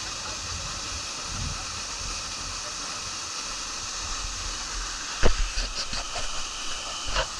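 Steady rush of a small waterfall pouring into its plunge pool, with a sharp knock about five seconds in, a few lighter ones after it, and another near the end.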